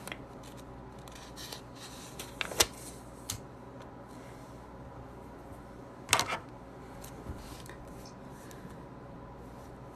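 Quiet room tone broken by a few brief handling noises, soft taps and rubs, the loudest about six seconds in.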